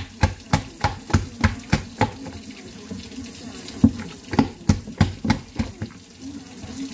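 Soft, wet puff puff dough being beaten in a bowl: a run of wet slapping strokes about three a second, a pause in the middle, then more strokes that thin out near the end. The dough is being worked after a pinch of extra flour was added to get the right texture.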